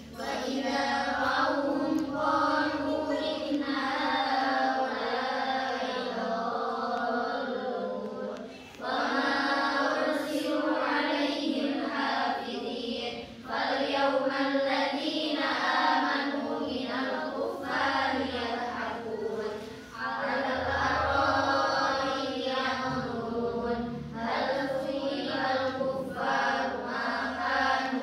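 A group of girls reciting the Quran aloud together in a melodic chant, in long phrases broken by short pauses for breath.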